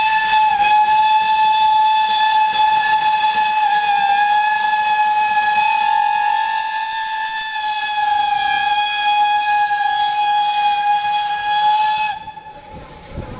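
Steam locomotive whistle blowing one long, steady blast of about twelve seconds, a single held note over a hiss of steam, cutting off abruptly near the end.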